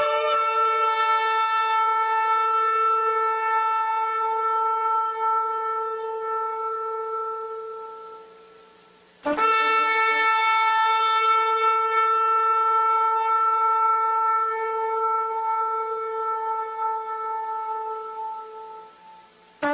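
Shofar sounded in long, steady-pitched blasts. One is already sounding and fades away about eight seconds in. A second starts abruptly just after nine seconds, holds its note for about nine seconds and fades out near the end.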